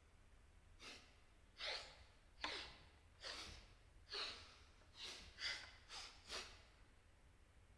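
A series of short, sharp breaths like gasps from the performers. There are about nine, unevenly spaced, coming closer together over the last couple of seconds.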